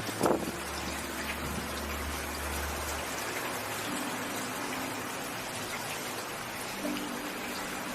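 Steady rainfall, an even hiss of drops, with one short thump just after the start.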